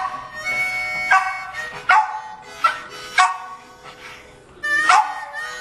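Jack Russell terrier singing along to a blues harmonica in a string of about six short cries, with a gap a little after the middle, while the harmonica holds long notes.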